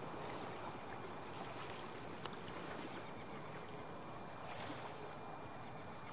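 Faint steady wash of river water and light wind at the shoreline, with one sharp click about two seconds in and a short swell of hiss a little later.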